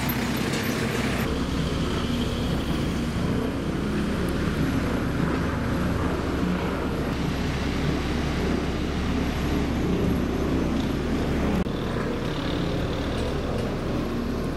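A motor engine droning steadily, with a low even hum. The background noise changes abruptly about a second in and again near the end.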